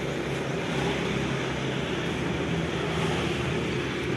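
A motor running steadily: an even low hum with a rumble beneath.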